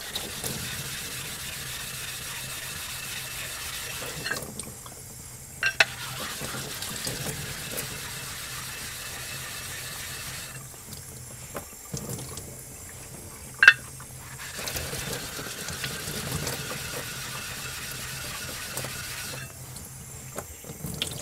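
Diamond lapping plate scrubbed back and forth across a wet ceramic whetstone to flatten it, in three long spells with short pauses between. Tap water runs and splashes into the sink throughout, and a few sharp knocks come in the pauses.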